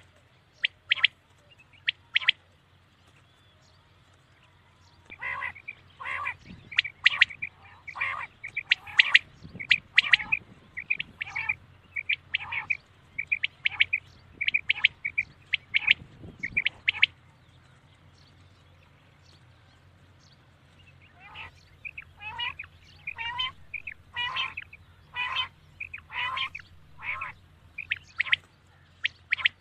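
Common quail calling: a few short calls, then two long runs of rapid, sharp, high notes with a pause of a few seconds between them, over a faint steady low hum.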